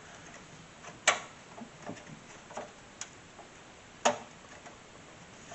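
Sharp clicks and knocks of a component being handled and slid back into a desktop PC case. There are two louder snaps, about a second in and about four seconds in, with lighter taps between them.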